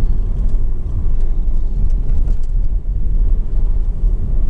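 Low, steady rumble of a vehicle heard from inside its cabin as it rolls along a rough country road: road and tyre noise with the drivetrain underneath, and a few faint ticks.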